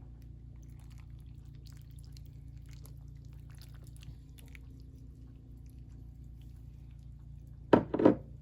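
Milk being poured into a casserole dish of hashbrowns, ham and eggs, a faint pour with small scattered ticks over a steady low room hum. Near the end come two loud knocks in quick succession.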